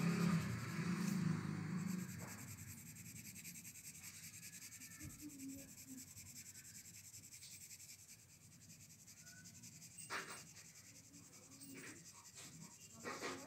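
Pencil scratching and rubbing on drawing paper in short shading strokes, with a few firmer strokes near the end. A low steady hum stops about two seconds in.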